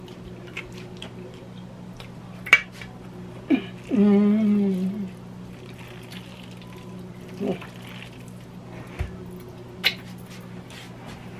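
A silicone spatula stirs thick, wet filling in a stainless steel mixing bowl, with a few sharp knocks against the bowl, over the steady hum of a running countertop convection oven. The loudest thing is a short vocal sound with a wavering pitch, about four seconds in.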